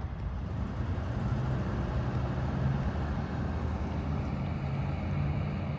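Steady low engine rumble of a vehicle, with a low hum running through it.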